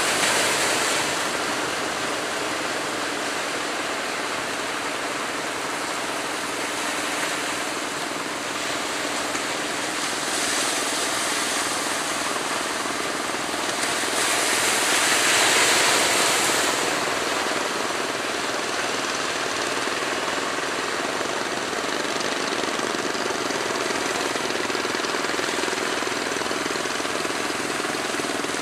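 Rough surf and open sea with a steady rushing wash. It swells as a big wave breaks about halfway through, with a faint steady low hum underneath.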